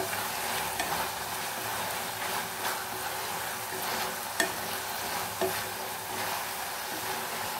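Chicken in masala sizzling in a pan while a wooden spatula stirs and turns it, with a steady hiss and a few short knocks and scrapes of the spatula against the pan.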